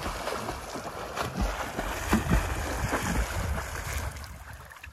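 A swimmer kicking and splashing in river water while paddling on an inflated rubber inner tube, with wind on the microphone. The splashing dies down near the end.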